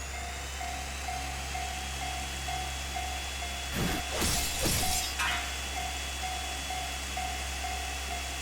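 Japanese level-crossing alarm bell ringing steadily at about two dings a second over a steady low rumble, with a louder clattering burst about four to five seconds in.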